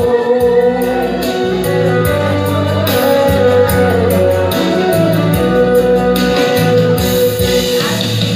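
Instrumental backing music: a held melody line over a steady, regular bass beat, with no singing voice.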